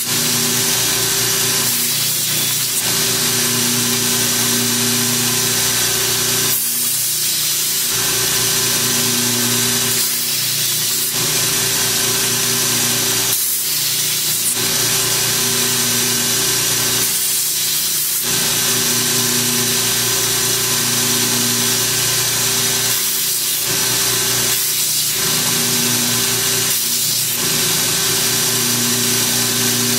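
Belt grinder running with a 100-grit belt as the carbon-steel blade of a Cold Steel Magnum Kukri Machete is ground against it in repeated passes, the grinding noise dipping briefly every few seconds between passes.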